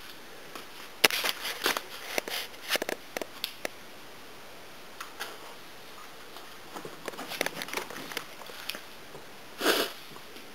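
Camcorder handling noise: a run of clicks, knocks and rustles as the camera is carried and set down in a new spot, with a short breathy puff near the end.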